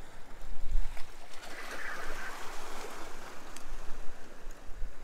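Sea waves washing and splashing against jetty rocks, with an uneven rushing that swells about two seconds in.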